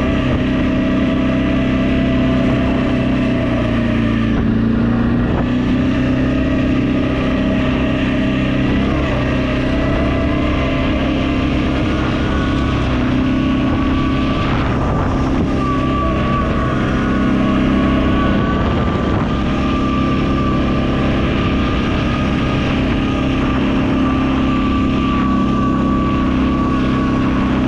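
CFMOTO X8 EFI quad's V-twin engine running at a steady speed, its pitch shifting only slightly.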